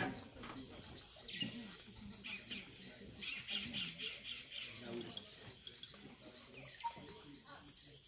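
Steady rainforest insect chorus, two unbroken high buzzing tones, with scattered short bird chirps over it, a quick run of them about three to four seconds in.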